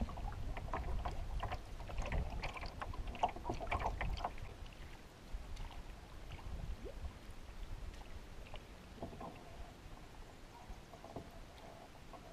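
Water slapping and splashing against the hull of a 16-foot Prospector canoe under way, with a low wind rumble on the microphone at first. The splashing fades and thins out after about four seconds.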